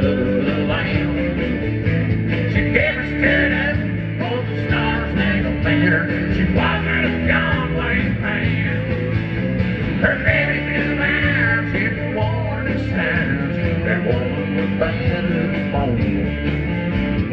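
Live country-rock band playing an instrumental break: drum kit, bass guitar, electric and acoustic guitars, with a melodic lead line over a steady bass.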